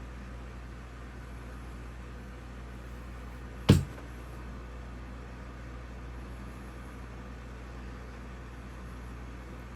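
Steady low hum and hiss of room noise, broken by one sharp knock a little under four seconds in.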